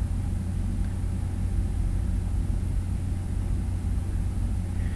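Steady low hum with a faint even hiss: the constant background noise under the narration, with no other events.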